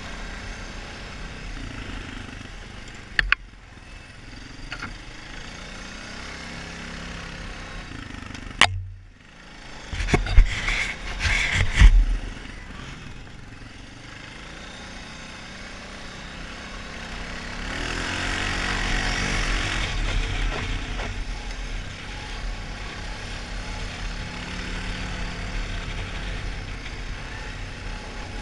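Honda 450 ATV's single-cylinder engine running at riding speed. A cluster of loud knocks and rattles comes about a third of the way in, the loudest sounds here, and past the middle the engine revs up for a few seconds, then eases back.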